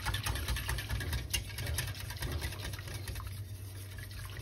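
Wire whisk stirring a thin milk-and-starch mixture in a metal saucepan: a quick, uneven run of light clicks and scrapes against the pan, over a steady low hum.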